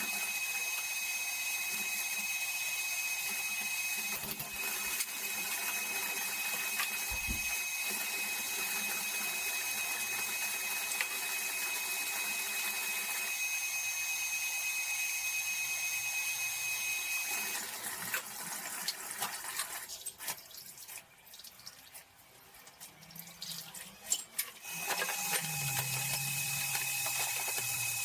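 Kitchen tap running steadily into a sink during dishwashing. The water stops about two-thirds of the way through, leaving a few seconds of scattered knocks and clatters of dishes, then runs again near the end.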